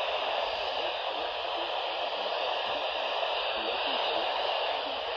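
Steady hiss of static from a NOAA Weather Radio receiver on weak reception, with the broadcast's watch message faintly audible beneath it.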